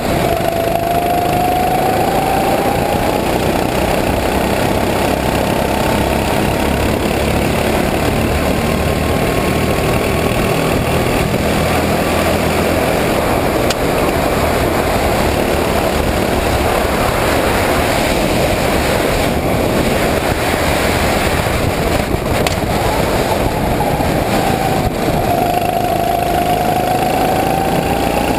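Sodi RT8 rental kart's single-cylinder four-stroke engine running at speed, heard from on board. Its pitch climbs as it accelerates near the start and again near the end, and rises and falls through the corners in between.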